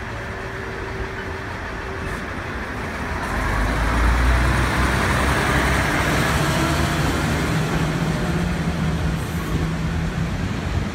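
Aizu Railway AT-500 series diesel railcar pulling out and passing close by. Its diesel engine gets louder about three and a half seconds in as it accelerates away, and the sound cuts off suddenly at the end.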